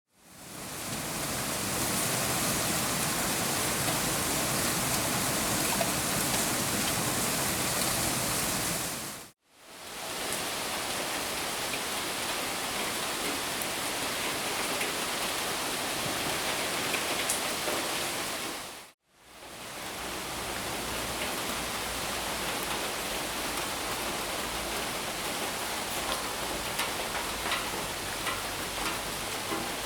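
Steady rain: a dense hiss of falling drops. It fades out and back in twice, about nine and nineteen seconds in. Separate drop taps stand out near the end.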